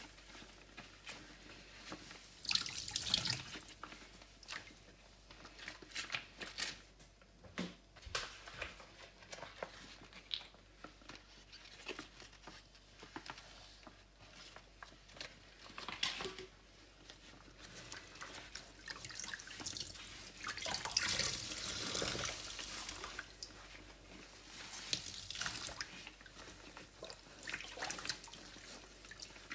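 A sponge soaked in soapy floor-cleaner solution being squeezed over and over, the liquid squelching and splashing out in irregular bursts, with drips falling between squeezes.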